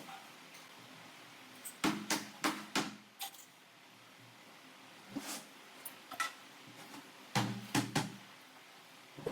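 Sharp knocks and clatter from handling the parts of a wooden wardrobe, in two bunches: about two seconds in and again about seven and a half seconds in, with a few single knocks between.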